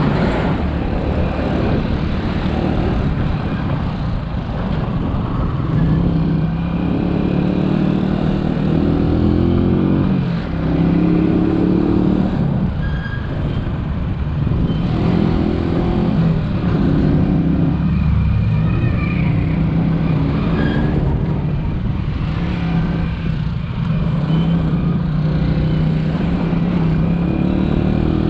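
Italika DT 125 motorcycle's single-cylinder four-stroke engine running on the road, its pitch climbing and dropping several times as the throttle opens and closes.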